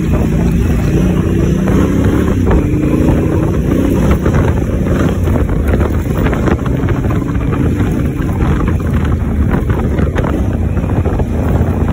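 Honda Africa Twin's parallel-twin engine running under way on a dirt track, its pitch wavering with the throttle, with wind on the microphone and scattered knocks and rattles.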